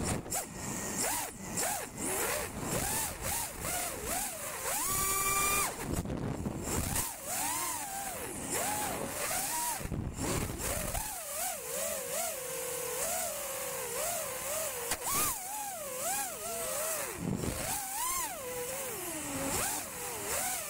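Eachine Wizard X220 racing quadcopter's brushless motors and propellers whining as heard from the craft itself, the pitch swooping up and down quickly as the throttle changes, over rushing wind. About five seconds in the whine is held briefly higher at a burst of throttle.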